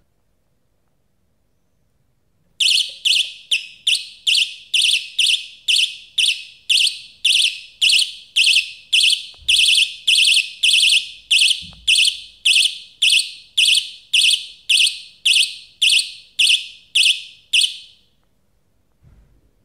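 Homemade seismic alarm, a battery alarm buzzer inside a hanging beer can, going off after a couple of seconds of quiet. It gives a run of shrill beeps, about two a second, for some fifteen seconds, then stops. The alarm is set off by the hanging can being moved, as in an earthquake.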